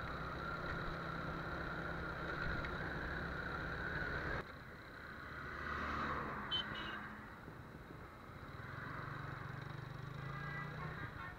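TVS Apache RTR 180's single-cylinder engine running at low speed as the bike rolls slowly through traffic; the engine sound drops suddenly about four seconds in. A large truck goes by about six seconds in, with a short horn beep.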